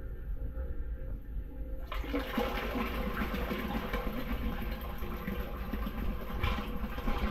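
Toilet flush water gushing out of a branch pipe and splashing into a sewer chamber, the rush growing much louder and fuller about two seconds in. The drain is running clear now that the blockage has been removed.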